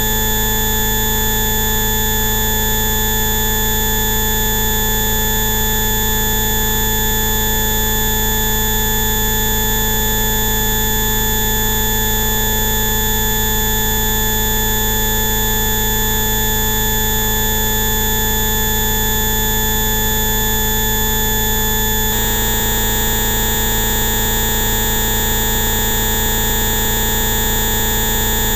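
A dense set of steady electronic tones sounding together at an unchanging loudness, a Rife-style bioresonance frequency complex. About 22 seconds in it switches abruptly to a different set of tones.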